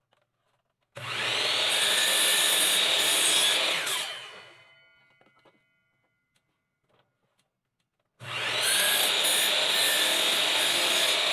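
Electric miter saw run twice, trimming about 1/8 inch off 1x4 pine star pieces: each time the motor starts, runs steadily for about three seconds through the cut, and the first run winds down with a falling whine.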